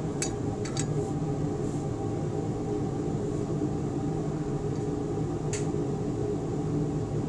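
Steady low mechanical hum with several held tones. Light clicks sound in the first second and one sharp click about five and a half seconds in as the rider is slid along a triple-beam balance's beam.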